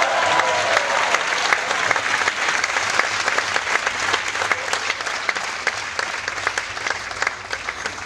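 Audience applauding, with some cheering voices in the first second. The clapping slowly thins and gets quieter toward the end.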